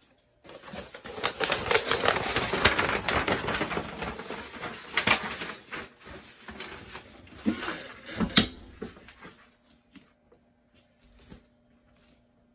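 Butcher paper and sublimation paper rustling and crinkling as they are smoothed and arranged around a stole on a clamshell heat press. A loud knock about eight seconds in comes as the press is clamped shut, and a faint steady hum follows.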